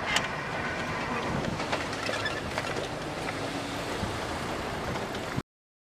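Keisei 3700 series electric train running on past a level crossing as it moves away: a steady rolling noise with a sharp click at the start and scattered light rail clicks. It cuts off suddenly about five seconds in.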